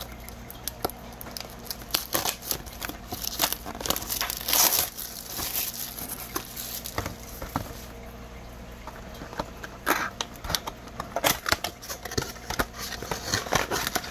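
Plastic wrapping being torn and crinkled off a trading card box, with irregular crackles and cardboard handling; a longer rip comes about four and a half seconds in, and a dense run of crinkling starts about ten seconds in.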